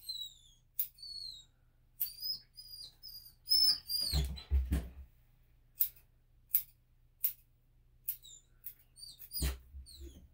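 Mini Bernedoodle puppy giving a series of short, high-pitched whines and squeals while its paw is held, mixed with sharp clicking snips of grooming scissors.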